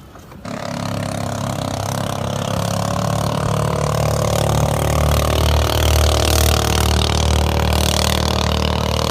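Racing outrigger boat's engine running hard at a steady, high speed, coming in suddenly about half a second in and holding a nearly constant pitch.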